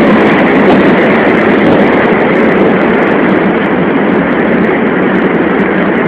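Strong wind blowing hard across the microphone: a loud, steady rushing noise.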